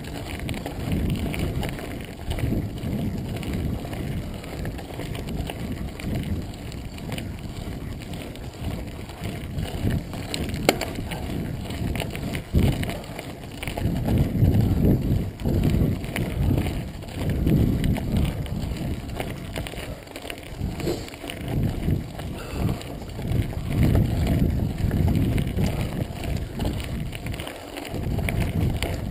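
Full-suspension mountain bike rolling over a gravel road: tyre noise on loose gravel with rushing wind on the microphone that swells and fades every few seconds, and a couple of sharp knocks from the bike over bumps.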